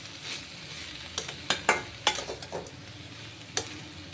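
Spatula stirring bitter gourd slices in a kadai, clicking and scraping against the pan at irregular moments, over a steady sizzle of frying as the chilli powder is mixed in.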